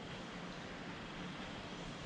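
Steady rain: an even, unchanging hiss.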